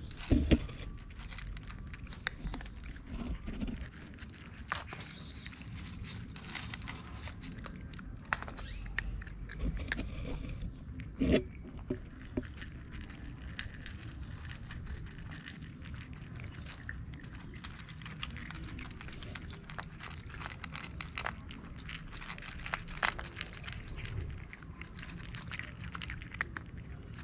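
Cats eating dry kibble from dishes close by: irregular sharp crunches of chewing over a steady low rumble, with a couple of louder knocks, about half a second in and about eleven seconds in.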